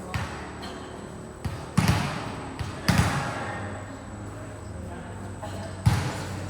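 A volleyball being struck during play: sharp slaps, the loudest about two and three seconds in and another near the end, each echoing briefly. Faint voices murmur underneath.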